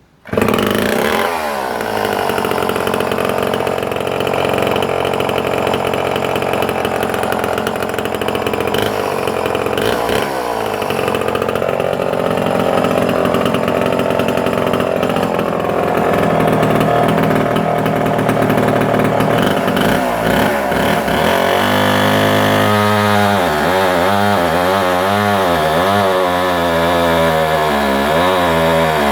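A Homelite C51 77 cc two-stroke chainsaw running at full throttle, cutting through a thick hardwood log. The saw comes in suddenly just after the start. Its note dips a couple of times and, from about two-thirds of the way through, wavers rapidly up and down as the chain bites into the wood.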